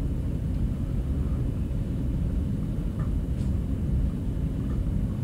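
Steady low rumble of background room noise, with a couple of faint ticks about three seconds in.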